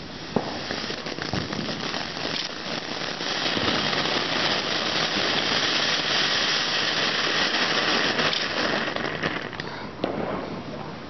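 Ground fountain firework spraying sparks: a steady hiss with crackling that swells over the first few seconds, holds, then dies away near the end.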